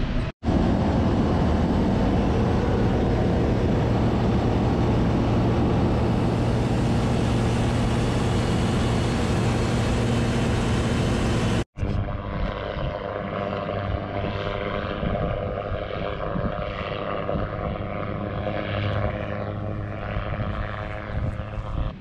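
Ultralight aircraft's propeller engine running steadily and loud. After an abrupt cut about twelve seconds in, a quieter, uneven aircraft engine drone.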